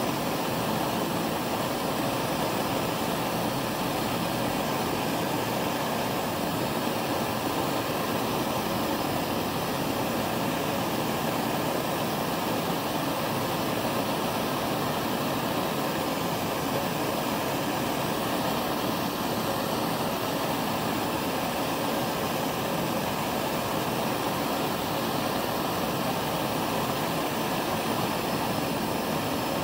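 Bernzomatic MAP-gas hand torch burning steadily, its flame held on a steel shrink-fit tool holder to heat it for inserting a tool. An even rushing noise with no change in level.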